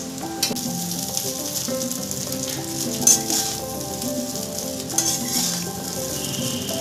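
Metal spatula scraping the steel kadai as egg fried rice is lifted and turned, with a light frying sizzle from the rice in butter over a low gas flame. Louder scrapes come about half a second, three seconds and five seconds in, over soft background music.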